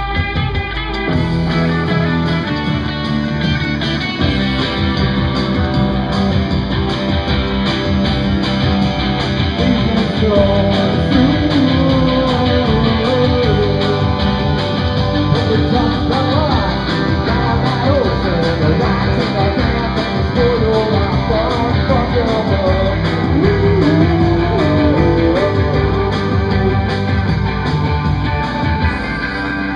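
Live rock band playing, with electric guitar over a steady beat.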